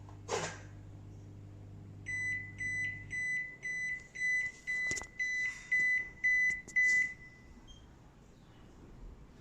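Defy top-loader washing machine beeping its E6 error alarm: about ten short, high, identical beeps, roughly two a second, which is the machine's warning that it failed to turn the drum for spin. A low hum, plausibly the drain pump, stops about three seconds in, just after the beeping starts.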